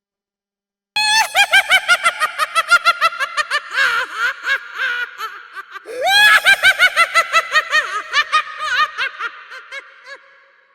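A high-pitched, cackling clown laugh sound effect in two long peals: rapid 'ha-ha' pulses, several a second, falling in pitch, starting about a second in. The second peal opens with a rising swoop about six seconds in and fades out near the end.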